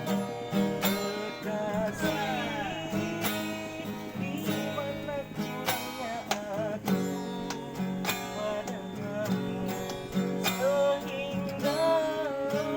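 Music: acoustic guitar strumming through an instrumental break between sung lines, with a melody line that wavers in pitch above it.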